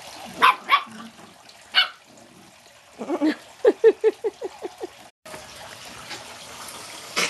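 Jack Russell Terriers yapping as they play. There are a few sharp yips in the first two seconds, then a fast run of about eight yaps midway.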